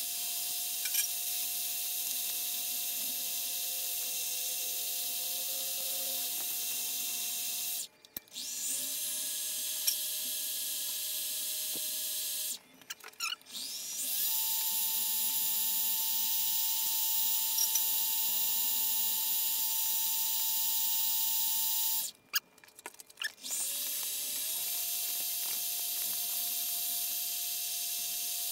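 Mini-lathe motor running with a steady whine while a spinning steel bolt tip is polished with sandpaper. The lathe stops three times and spins back up with a short rising whine, settling at a different pitch each time.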